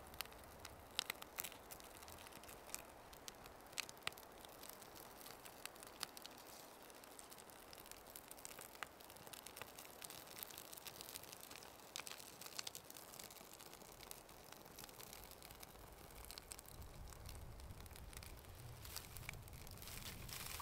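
Wood fire crackling faintly, with irregular sharp pops.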